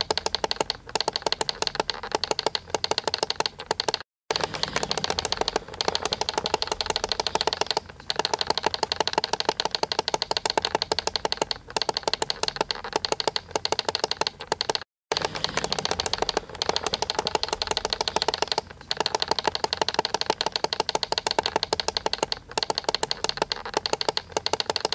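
Digital alarm clock's alarm sounding without a break: a harsh electronic beep chopped into very fast pulses, with a short gap every few seconds. The sound cuts out completely for a split second twice.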